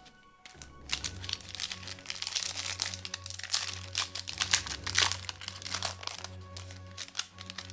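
Foil wrapper of a trading-card pack crinkling as it is handled, starting about half a second in, over background music.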